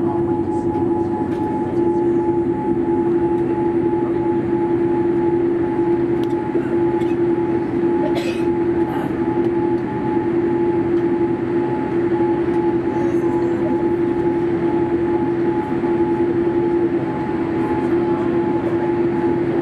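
Steady airliner cabin noise inside a Boeing 787-8 Dreamliner on the ground: a constant hum with two steady tones over an even rush of air.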